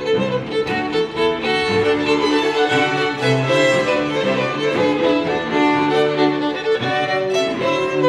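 Violin with a string quartet of two violins, viola and cello, playing a bowed melody over held low cello notes.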